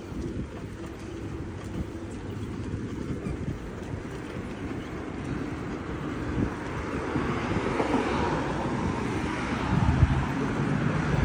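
Wind rushing over the microphone and road noise while riding a bicycle along a paved path, growing louder over the second half.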